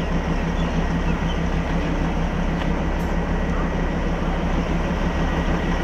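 Narrow-gauge diesel locomotive of the Darjeeling toy train idling at the platform: a steady low engine hum that does not change.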